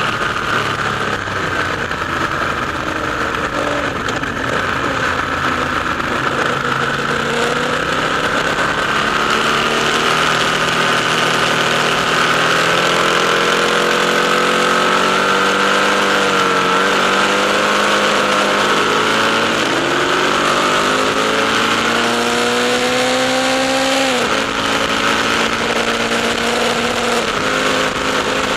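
Ducati motorcycle engine running through a tunnel, its pitch drifting up and down with the throttle. Near the end it climbs steadily in revs for a few seconds, then drops suddenly as the throttle is shut or a gear is changed.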